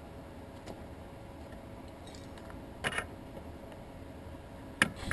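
Metal hand tools handled and set down on stone paving: a short clatter about three seconds in, when a pair of locking pliers is put down, and a sharp click near the end, over a faint steady background.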